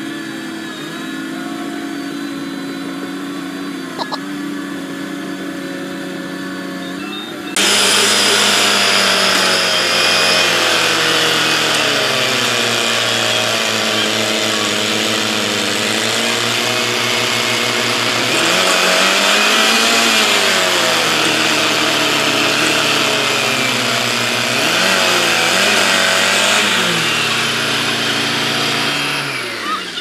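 Heavy vehicle engines running: a steady engine hum, then about seven seconds in a sudden jump to a much louder engine revving, its pitch rising and falling again and again as it works under heavy pulling load in a tug of war.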